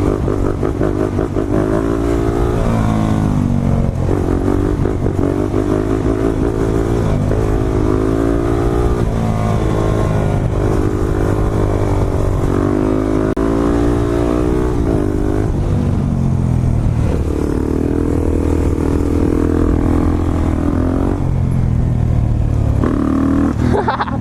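Single-cylinder dirt bike engine pulling hard, rising in pitch and then dropping back several times as the rider shifts gears, with a steadier stretch in the middle.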